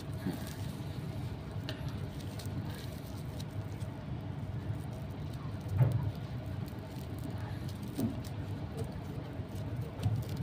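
Faint rustling and light ticks of three-strand synthetic rope being worked by hand as its strands are tucked into a splice, over a steady low hum. A short low thump comes just before six seconds in.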